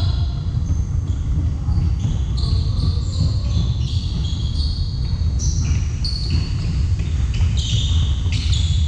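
Basketball shoes squeaking on a hardwood gym floor as players run, cut and stop: many short, high squeaks scattered throughout. A steady low rumble sits underneath.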